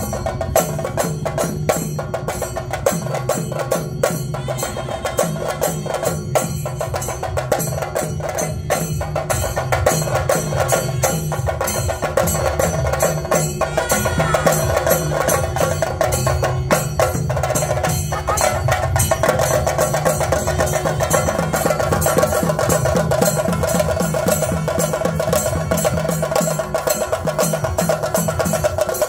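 Theyyam drumming: chenda drums beaten fast with sticks in a dense, unbroken rhythm, with a steady held tone underneath.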